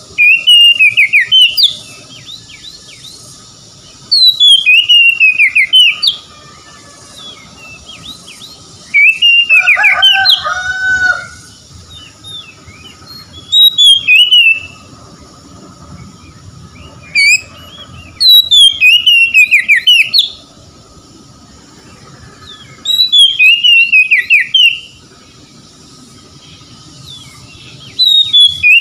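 Oriental magpie-robin (kacer) singing: loud whistled phrases about two seconds long that fall in pitch, repeated every four to five seconds. One phrase, about ten seconds in, adds lower notes.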